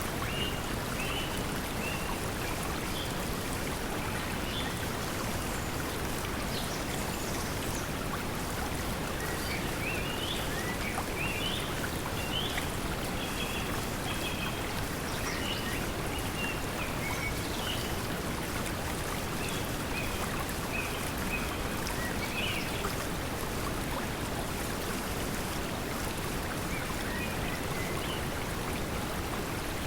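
Steady pink noise mixed with a flowing stream, with short bird chirps here and there over it, most of them in the middle stretch.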